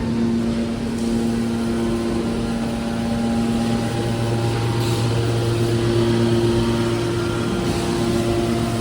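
Hydraulic scrap-metal baler running: a steady motor and pump hum with several held tones, which shift in balance about four seconds in as the load changes.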